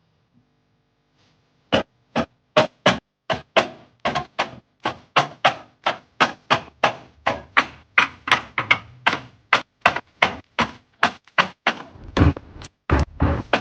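A quick run of taps and knocks as items are set down and arranged one after another, about three a second, starting a couple of seconds in. A couple of heavier thunks come near the end.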